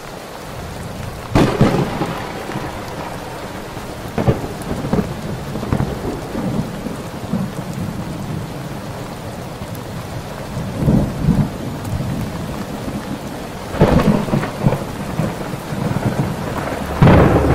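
Thunderstorm: heavy rain falling steadily, broken by several cracks and rumbles of thunder, the loudest a little over a second in and again late on.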